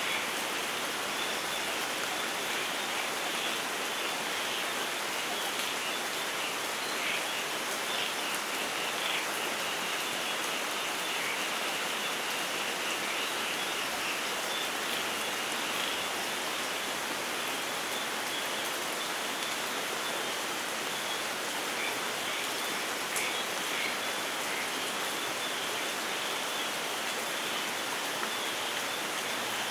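Steady rainfall in a rainforest, an even patter, with faint high chirps from birds or insects threaded through it.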